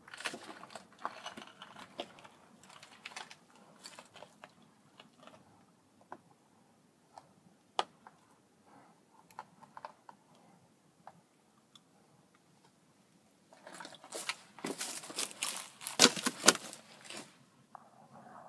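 Footsteps and shuffling over dry leaves, twigs and loose stone rubble: scattered crunches and crackles, sparse in the middle, then a dense run of crunching near the end that is the loudest part.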